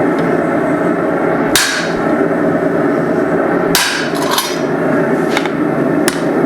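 Hand hammer striking a guillotine tool on hot steel, flattening the faces of a forged hammer head: half a dozen irregular blows, the two loudest about a second and a half and four seconds in, each with a short ring. A steady drone runs underneath.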